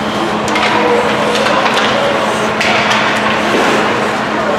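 Ice hockey game in play: skates scraping the ice and sticks and puck clacking in several sharp knocks, with scattered shouts over a steady low hum in the rink.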